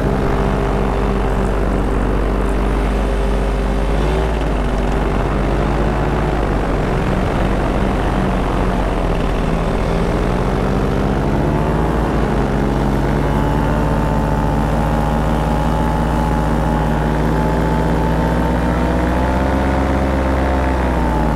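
Paramotor's Top 80 two-stroke engine and propeller running steadily in flight. The engine speed dips briefly a few seconds in and again around the middle, then rises and holds.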